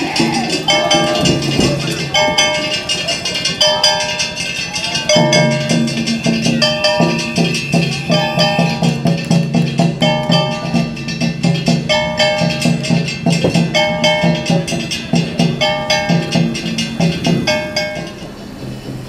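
Japanese Gion festival float music (hayashi) playing: rapid, steady percussion with drumming and hard clacking strikes, under a short tonal phrase that repeats about once a second. A deeper, fuller layer comes in about five seconds in.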